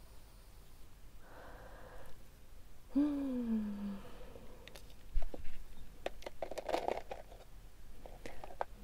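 A short, falling hum-like vocal sound about three seconds in, followed by a handful of sharp clicks and taps with a brief rustle, the loudest click just after the middle.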